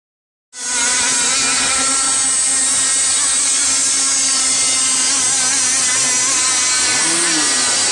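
Radio-controlled outrigger and hydroplane racing boats running flat out, their motors giving a steady, high-pitched whine like a power tool.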